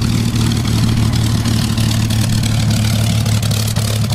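Piston engines of a World War II vintage propeller aircraft running steadily at a constant pitch, with a strong low hum and a broad rush of propeller and exhaust noise.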